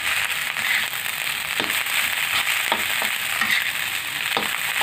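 Fried rice sizzling in a hot pan as it is stir-fried, with a metal spoon scraping and knocking against the pan several times.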